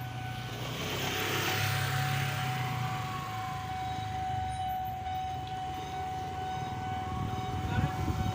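A vehicle passing close by: a low rumble with a swell of hiss that peaks about two seconds in and fades. Over it a thin steady high tone holds, and the rumble picks up again near the end.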